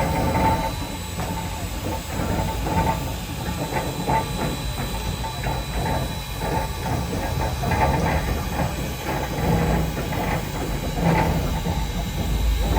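Steam locomotive turning on a railway turntable: a steady low rumble with irregular metallic clanks and clicks.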